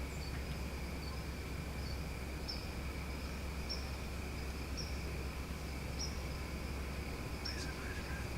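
Outdoor night-insect chorus: a steady high drone of crickets, with a short high chirp repeating about once a second over a low steady rumble.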